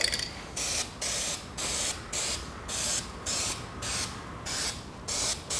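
Krylon High Heat aerosol spray-paint can spraying in a series of short hissing bursts, about two a second.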